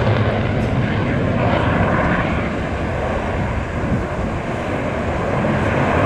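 Eurofighter Typhoon's twin EJ200 turbofans running in full reheat (afterburner) as the jet powers out of slow flight: a loud, steady jet noise that eases slightly midway and builds again near the end.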